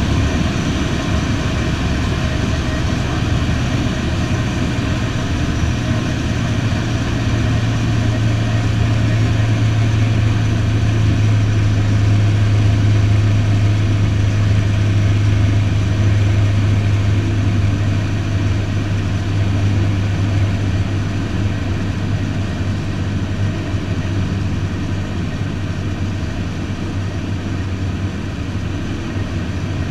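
Single-engine light aircraft's piston engine and propeller drone, heard inside the cockpit. The steady low note drops slightly about halfway through, and the sound eases a little in loudness toward the end.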